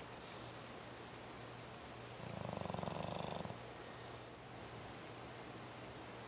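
English bulldog snoring in its sleep: one rattling snore about two seconds in, lasting just over a second.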